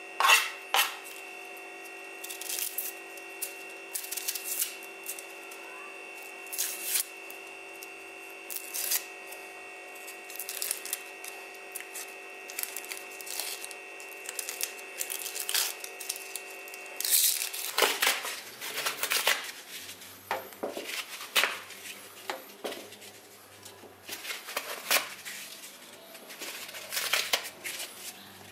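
Dry onion skins crackling and tearing as they are peeled off by hand, in short rustles every second or so. About two-thirds through, the steady background hum stops and quicker, sharper clicks and rustles follow as lumps are dropped into a metal grill.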